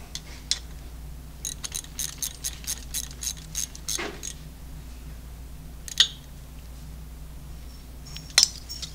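Hand ratchet clicking in a run of short strokes, about three or four a second, as a lifter retainer bolt on a Milwaukee-Eight engine is run down, followed by a few separate sharp metal clicks. A steady low hum runs underneath.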